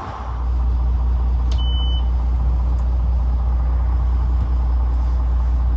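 Boat engine running at low speed, a steady low rumble that comes in abruptly just after the start.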